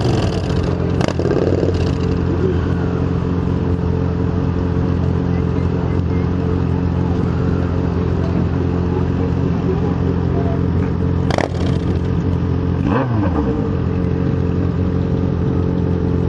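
Yamaha XJ6 N motorcycle's inline-four engine running steadily at one constant pitch, with a couple of sharp clicks and, about two-thirds through, a brief falling whine from an engine winding down.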